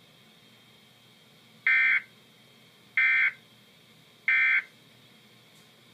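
Emergency Alert System end-of-message code: three short, buzzy SAME data-tone bursts about 1.3 seconds apart, the signal that closes an EAS alert broadcast.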